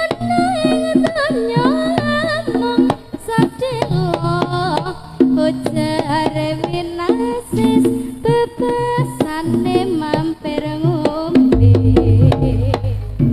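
Javanese jaranan campursari band playing: hand-drum (kendang) strokes under a wavering, sliding melody line. A deep low bass note comes in near the end.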